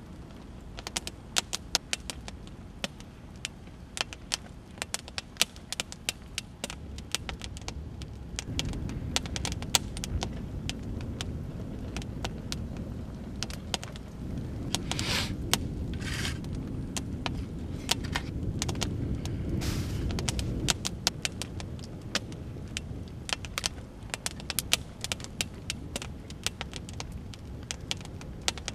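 Wood campfire crackling, with many sharp pops and snaps throughout. A low rumble swells from about a third of the way in to about two-thirds, and two short scraping sounds come about halfway through.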